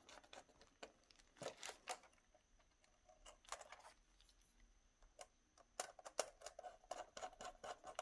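Faint, scattered small clicks and scratches of hands and a small screwdriver working a wire into the screw terminals of a barrier-strip terminal block, more frequent in the last couple of seconds.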